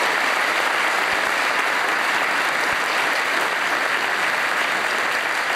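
Audience applauding: dense, even clapping that holds steady.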